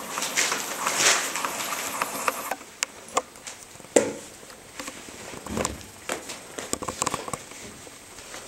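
Chinese Crested Dog puppies moving about: rustling and scrabbling for the first couple of seconds, then scattered light taps with one sharp knock about four seconds in.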